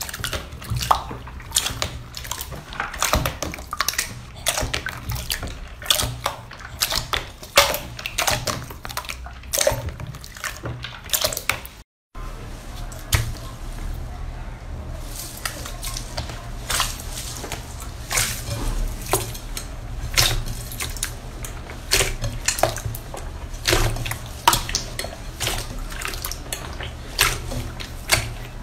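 Slime being squished and poked by hand: a run of irregular wet clicks and pops, with a brief break about twelve seconds in.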